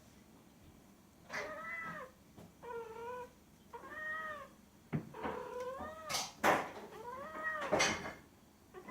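Domestic cat meowing repeatedly: about six drawn-out meows, each rising then falling in pitch, with a few sharp knocks among them in the second half.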